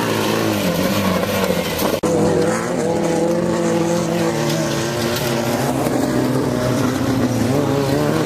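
Off-road race vehicle engine running and revving, its pitch rising and falling. An abrupt cut about two seconds in switches to another stretch of engine sound.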